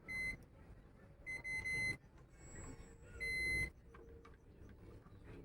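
Multimeter continuity beeper sounding three short, high beeps as the test probes make contact, the middle one a little longer.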